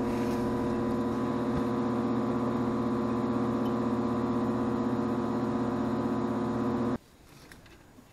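Steady electrical mains hum with a buzzing edge. It cuts off abruptly about seven seconds in, leaving faint room tone.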